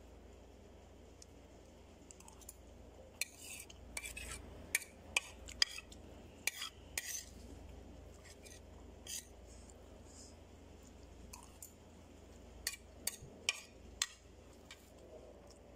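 Metal spoon clinking and scraping against a ceramic plate while eating rice: a run of sharp clinks a few seconds in, and a few more near the end.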